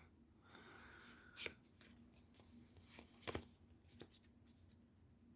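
Faint handling of Magic: The Gathering cards from a booster pack as they are flipped through: a soft rustle in the first second or so, then two light clicks about two seconds apart and small ticks between them.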